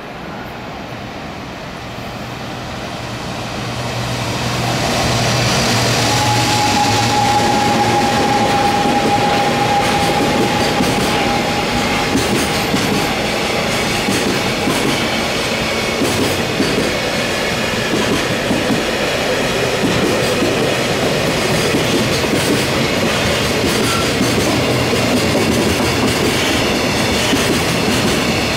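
An EF210 electric locomotive hauling a container freight train passing through a station without stopping. The noise builds over the first few seconds as the locomotive arrives, with a steady high whine for several seconds, then the long wagons keep up a loud, steady rush and clatter of wheels on rail.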